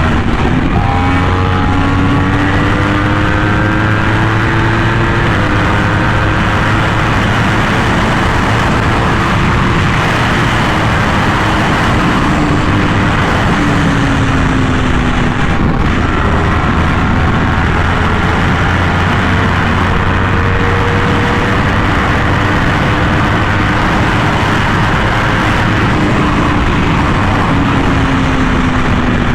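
Yamaha R1M's crossplane inline-four through an SC Project exhaust, pulling hard at highway speed with its note climbing slowly; the pitch falls back about halfway through and again near the end. Heavy wind rush on the microphone runs under the engine.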